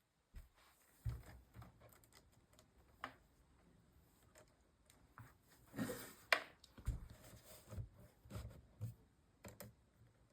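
Irregular light clicks, taps and a few soft knocks of small hard parts being handled and fitted, with the loudest cluster about six seconds in.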